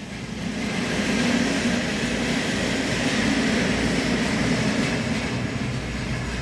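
Wood-burning stove with the fire burning hard under a strong draft: a steady rushing rumble that builds over the first second and then holds.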